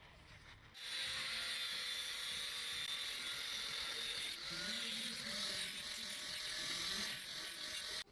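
A machine running with a steady whirring hiss that starts about a second in and cuts off abruptly near the end.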